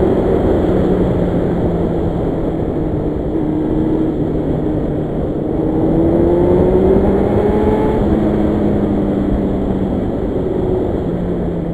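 Yamaha FZR1000 motorcycle's inline-four engine running at cruising speed over a steady rush of wind noise, its pitch rising gradually about five seconds in and easing back toward the end.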